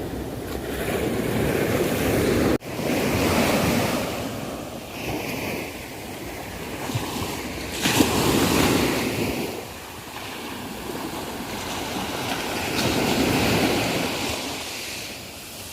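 Sea waves breaking on a beach: the surf swells and washes out in slow surges every few seconds. The sound drops out for a split second about two and a half seconds in.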